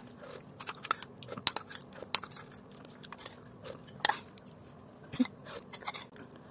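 Spoon scraping and clicking against a bowl in quick irregular strokes as the last of a bowl of soup and rice is scooped up and eaten, with some chewing.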